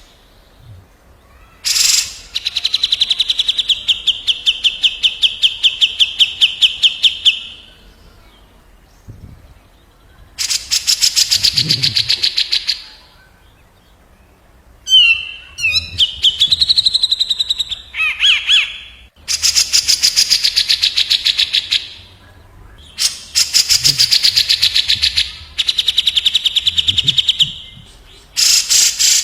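Cucak jenggot (grey-cheeked bulbul) and kapas tembak bulbul singing against each other: long, fast rattling trills repeated with short pauses between them, and a short run of varied rising and falling whistled notes in the middle.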